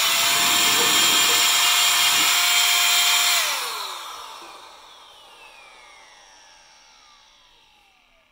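Handheld cordless electric air blower running at full speed with a high whine and rushing air. A little over three seconds in it is switched off, and the motor spins down, its whine falling in pitch and fading away.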